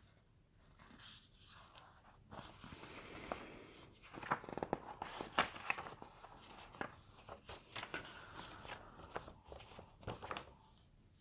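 Rustling and handling noises with many sharp clicks and taps, starting about two seconds in, busiest around the middle and fading near the end.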